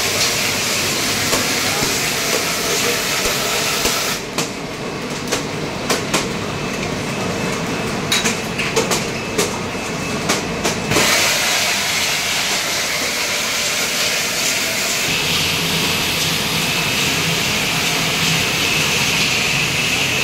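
Automatic bottled-water rinsing-filling-capping line and its bottle conveyor running: a steady mechanical clatter with hiss, and a run of sharp clicks and knocks between about four and eleven seconds in.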